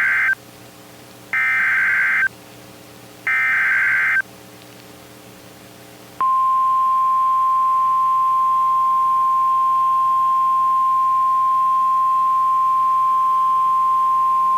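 Emergency Alert System SAME header: three warbling, buzzy digital data bursts of about a second each. After a short pause comes the steady NOAA Weather Radio 1050 Hz alert tone, held about nine seconds. Together they signal the start of a new warning broadcast, here a flash flood warning.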